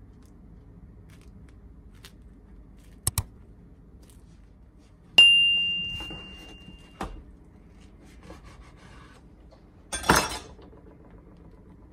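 Two quick clicks, then a bell-like ding that rings out and fades over about two seconds: a subscribe-button sound effect. A knock follows, and about ten seconds in a short clatter as a kitchen knife is set down on the counter.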